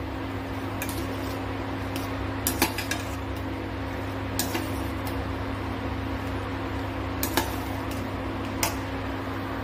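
Slotted steel spatula clinking against a stainless steel pan while stirring shankarpali frying in ghee, about six sharp clinks over the steady sizzle of the frying.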